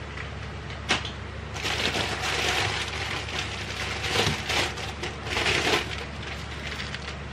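Packaging being handled while items are taken out of an RC car box: irregular crinkling and rustling, with a sharp click about a second in.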